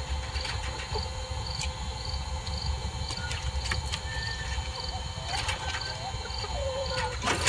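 Small battery-powered motor of a Hensafe automatic coop door whining steadily as it winds the sliding door open, then stopping about seven seconds in. Hens cluck softly over a steady pulsing insect drone.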